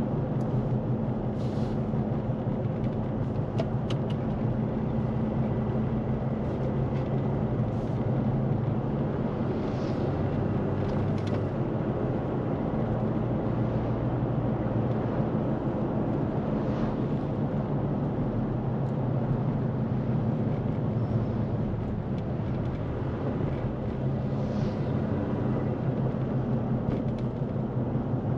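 Steady low drone of a vehicle engine running at an even pace, with road noise.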